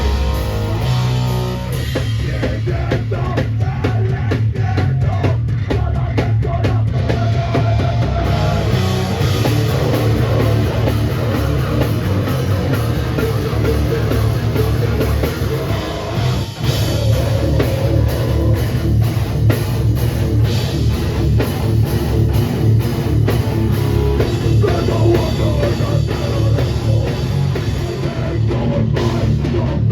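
Hardcore/metalcore band playing live at full volume: distorted guitars, bass and a pounding drum kit, with a brief break about halfway through.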